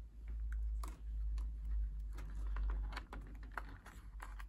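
Irregular light clicks and taps of hands handling a plastic washing-machine controller display panel and its ribbon cable, over a low rumble.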